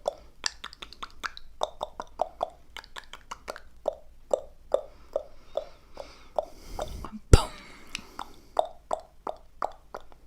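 Close-miked ASMR mouth sounds: a steady run of short wet pops, a few a second, with a brief breathy hiss and then one much louder pop about seven seconds in.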